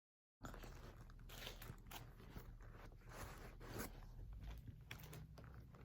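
Faint rustling and crinkling with small scattered clicks of hands handling a lambskin flap bag, starting about half a second in.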